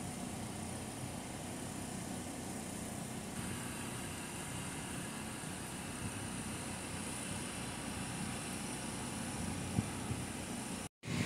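Steady hum of an engine running at a constant low speed, with no change in pitch. It breaks off abruptly just before the end.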